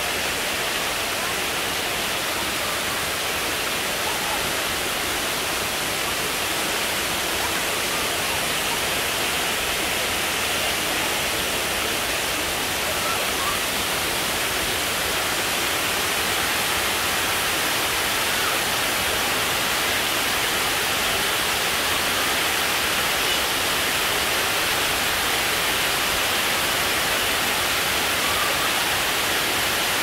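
Waterfall cascading over low tiered rock steps into a pool: a steady, even rush of water.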